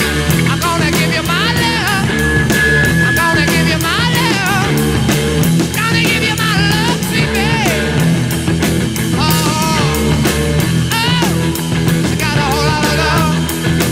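Rock-and-roll background music with a steady drum beat and a wavering lead melody.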